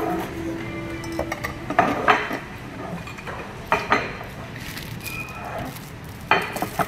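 Metal fork and knife clinking against a plate, in three short clusters about two, four and six and a half seconds in.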